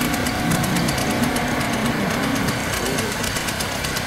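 Small 600 mm narrow-gauge diesel locomotive's engine running with a rapid, even knocking chug as the locomotive moves slowly along the track.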